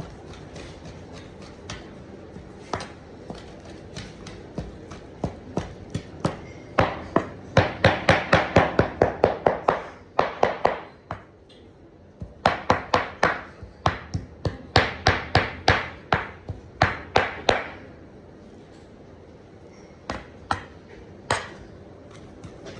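Heavy knife chopping raw beef against a cutting board to mince it by hand: rapid repeated chops several a second, in two long loud runs in the middle with sparser, lighter strikes at the start and near the end.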